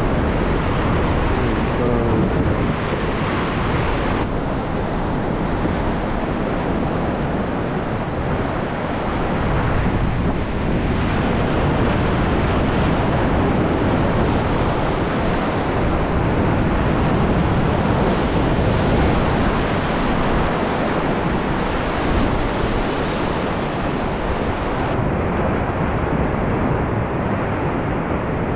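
Sea surf breaking and washing over a rocky shore in a continuous loud rush, with wind buffeting the microphone.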